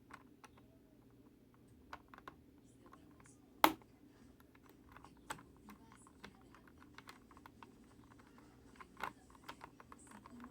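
Scattered light clicks and taps of small hard parts being handled, with one sharper click about three and a half seconds in, over a faint steady hum.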